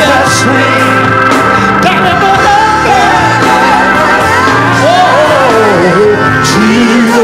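Gospel singing: a man's voice singing into a microphone over sustained organ chords, with long melismatic runs and one long slide down in pitch near the end.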